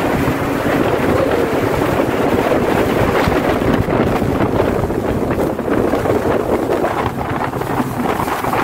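Sea-Doo jet ski's engine running at speed, with water rushing under the hull and wind buffeting the microphone.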